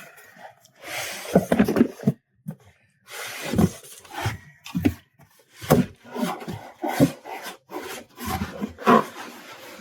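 Cardboard shipping box being opened and handled: flaps and packing rub and scrape in irregular bursts, with a few brief pauses.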